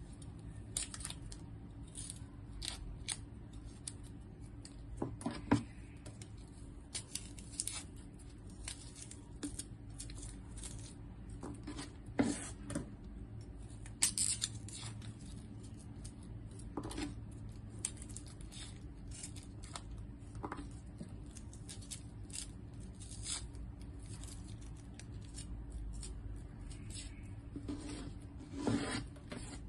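A chef's knife peeling the papery skins off garlic cloves and shallots over a plastic cutting board: scattered light clicks, snips and small taps at an irregular pace.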